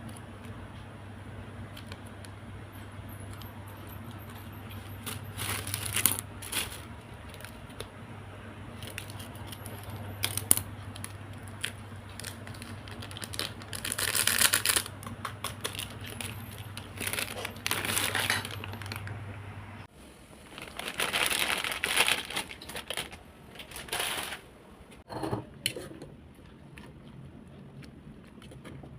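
Scattered rustling, crinkling and clinking handling sounds in short bursts, over a steady low hum that cuts off abruptly about 20 seconds in.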